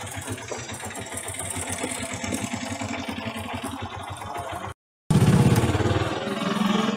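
A small vehicle engine running with an even pulsing beat. The sound drops out completely for a moment about five seconds in, then comes back louder.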